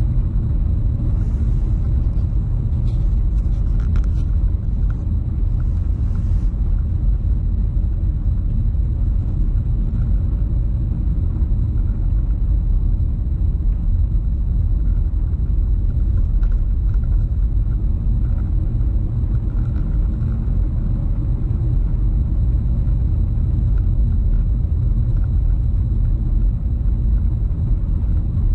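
Car driving at a steady pace: a constant low rumble of road and engine noise, with a few faint clicks in the first several seconds.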